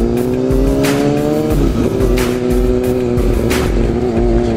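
Yamaha FZ-09's three-cylinder engine pulling under throttle, its note slowly climbing in pitch. The pitch drops about two seconds in, holds steady, and starts climbing again near the end. Background music with a regular beat runs under it.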